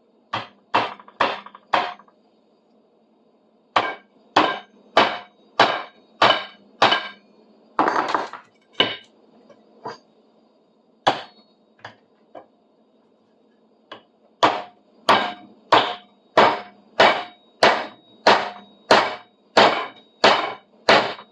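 A hammer driving a nail to pin a freshly glued wooden handle: sharp strikes with a slight ring, four quick blows, a pause, a run of about six, a few lighter taps, then a steady run of about one and a half blows a second from about two-thirds of the way in.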